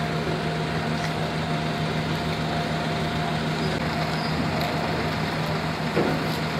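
A large engine idling steadily: an even low hum with a faint thin whine above it, and a brief knock about six seconds in.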